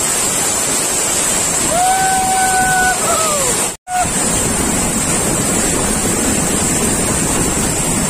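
Waterfall crashing into its plunge pool: a loud, steady roar of falling water. About two seconds in, a person gives one long held shout that falls away at the end, and the sound drops out for a split second just before four seconds in.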